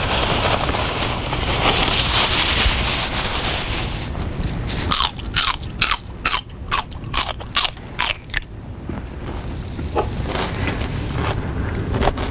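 A bag of chips crinkling, then loud crunching as chips are bitten and chewed: about eight sharp crunches in quick succession, then a few more spaced out near the end.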